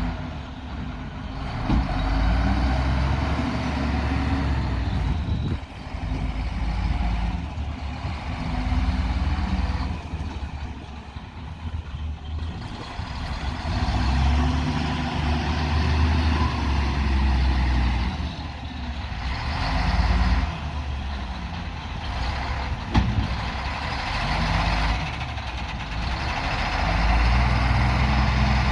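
The diesel engine of a heavy earthmoving machine (bulldozer or wheel loader) running under working load, its note rising and falling again and again as it revs up and eases off, over a heavy low rumble.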